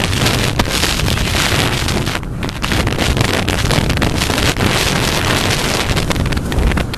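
Loud wind noise buffeting the action camera's microphone, a dense rumbling rush that runs on without a break.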